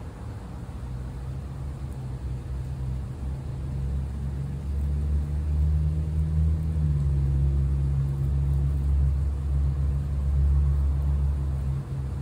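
Low engine rumble of a motor vehicle, growing louder about four seconds in and easing off near the end.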